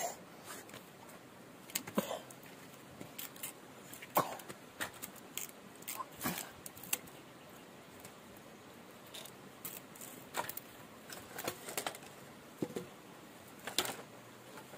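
A machete blade chopping and shaving at a thin wooden stick: irregular sharp knocks and short scrapes, a few every second.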